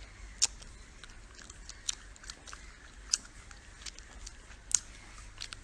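Scattered sharp clicks at irregular intervals, four of them standing out, over a faint low steady hum.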